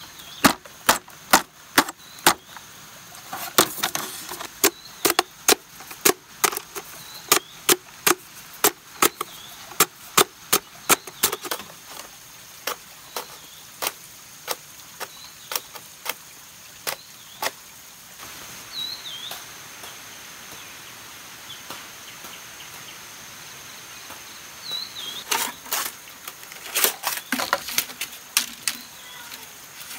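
Repeated sharp strikes on bamboo, about two to three a second, thinning out after about twelve seconds, pausing for several seconds, then starting again near the end.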